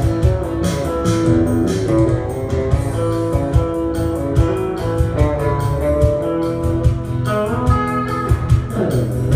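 Live band instrumental passage: guitars and electric bass playing over a steady beat, with no singing.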